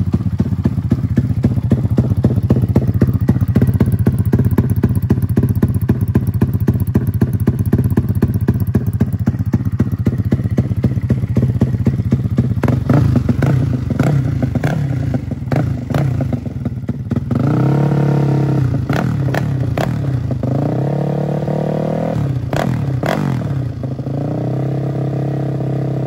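Custom 300cc big-bore, stroker-crank Honda Grom single-cylinder engine idling through an aftermarket exhaust, then revved by hand in several throttle blips from about halfway through, its pitch rising and falling, and held higher near the end. The engine is running on a tune the owner says still needs work.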